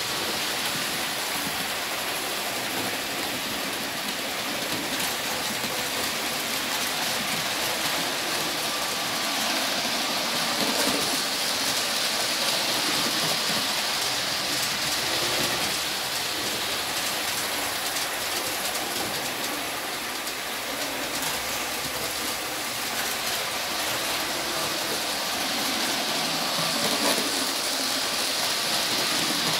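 Model trains running on the track, a Hornby HST and a Bachmann Class 45 hauling freight wagons: a steady whir and rattle of small motors and wheels on rail joints, swelling as the tank wagons pass around the middle and as the HST passes near the end.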